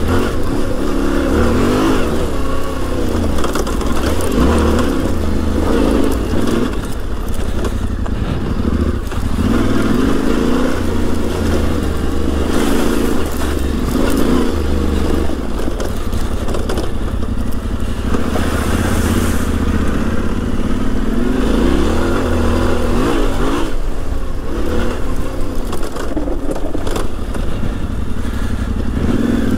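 Yamaha Ténéré 700's parallel-twin engine ridden hard off-road, its pitch climbing and falling again and again as the throttle is opened and closed.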